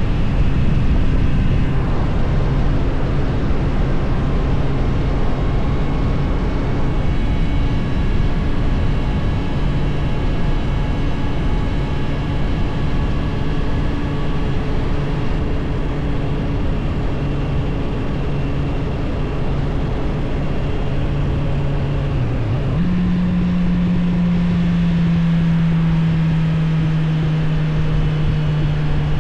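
Suzuki GSF 600 Bandit's inline-four engine running steadily on the move, with wind and road noise. About three-quarters of the way through, the engine pitch dips briefly, jumps up, then slowly sinks.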